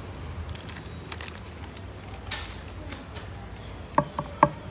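A small steel spoon working chilli powder on a ceramic plate: faint scraping, then three quick ringing clinks of the spoon against the plate near the end.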